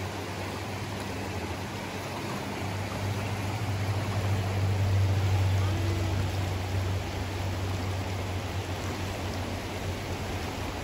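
Fast mountain stream rushing over rocks, a steady noise of running water. Under it a low rumble swells about three seconds in and eases off after about seven seconds.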